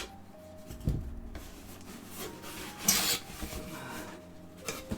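A cardboard subscription box being opened by hand: rubbing and scraping of cardboard, with a soft thump about a second in and a brief sharp scrape around three seconds in.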